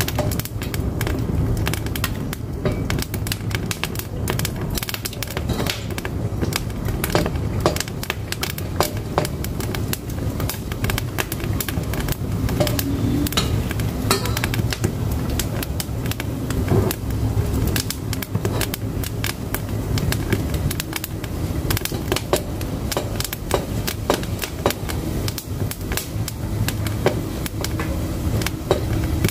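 Firewood burning in a wood-fired cooking stove, crackling with many irregular sharp snaps and pops over a steady low rumble of the fire.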